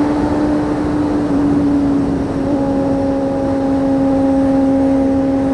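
1992 Honda CBR250RR's 250 cc inline-four running at steady revs through its aftermarket Musarri exhaust while under way, over a steady rush of wind noise. The engine note eases slightly about two seconds in, then holds steady.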